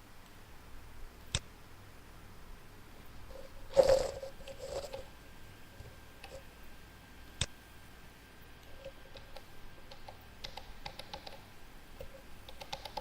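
Computer mouse clicking now and then, single sharp clicks a few seconds apart with a quicker run of clicks near the end, plus one brief louder noise about four seconds in.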